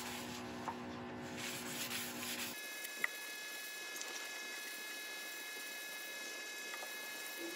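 Steady mains electrical hum from workshop equipment, which changes abruptly about two and a half seconds in to a thinner, higher steady whine. A single faint click comes shortly after the change.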